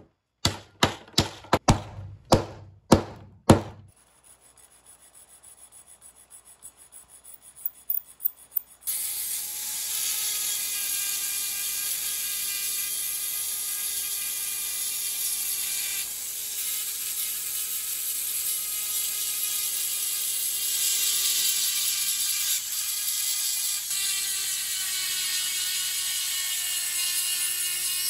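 About seven sharp blows in the first four seconds, driving the wooden wedge into the eye of a claw hammer's new handle. From about nine seconds in, a small rotary tool with a sanding drum runs as a steady high whine, sanding the protruding wedge and handle end flush with the hammer head.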